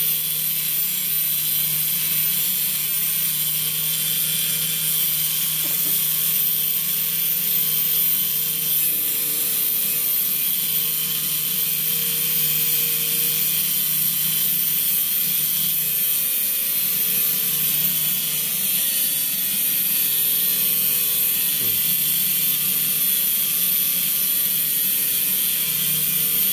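An electric cutting tool running steadily without a break, with a steady whine and a bright hiss, cutting into a locked metal box.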